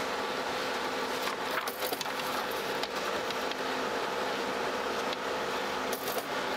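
Canon colour laser photocopier running with a steady hum. A few light clicks and knocks come about a second and a half in and again near the end as objects are shifted on its glass.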